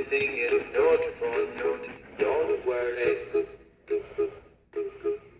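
Big Mouth Billy Bass animatronic singing fish playing its song through its small built-in speaker: a tinny male vocal over backing music, breaking into short snatches in the last two seconds.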